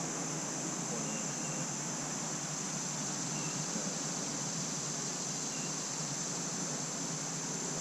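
Steady chorus of crickets or katydids, a constant high-pitched drone, over a soft even hiss, with a few faint short chirps.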